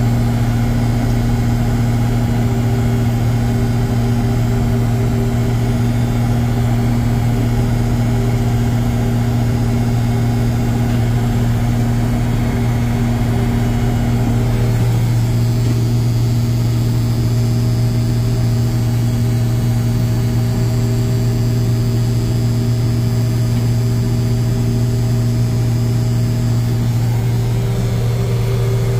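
John Deere 6620 Titan II combine running steadily under load while shelling corn: a constant engine and machinery drone. About halfway through, the tone shifts slightly and a higher whine joins in.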